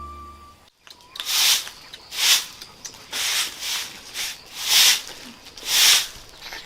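Background music ending about half a second in. After a short gap comes a series of hissing swishes or rubbing strokes, about one a second.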